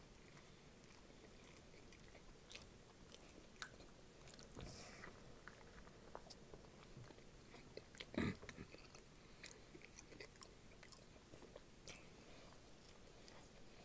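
Faint close-up mouth sounds of a person biting, chewing and crunching crunchy snacks such as Flamin' Hot Cheetos, with scattered small crackles and one louder crunch about eight seconds in.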